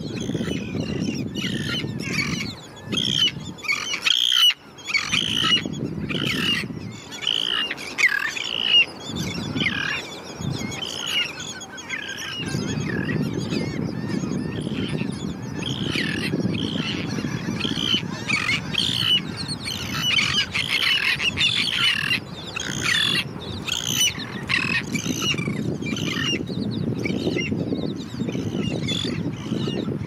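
A mixed flock of royal terns, black skimmers and gulls calling, with many short, harsh calls overlapping continuously. Beneath the calls is a steady low rush that fades out briefly a few seconds in and again for a couple of seconds before the middle.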